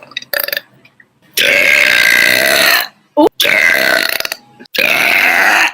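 A woman burping loudly: three long burps in quick succession, the first about a second and a half long.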